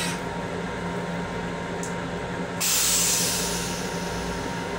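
LIRR M7 railcar toilet finishing its flush cycle: a brief click, then about two and a half seconds in a loud hissing spray into the stainless bowl that fades away, over the steady hum of the train car.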